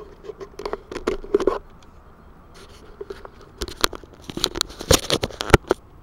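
Handheld camera being picked up and moved: two flurries of sharp clicks, rubs and scrapes, the second one louder.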